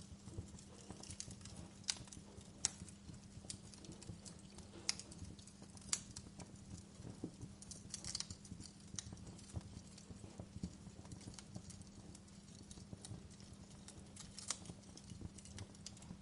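Fireplace fire crackling: irregular, faint pops and snaps of burning wood, a few sharper than the rest, over a steady low hum.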